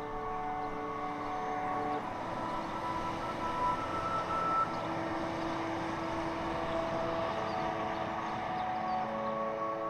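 Ambient music of long held notes. A steady rushing noise of road traffic comes in under it about two seconds in and fades near the end.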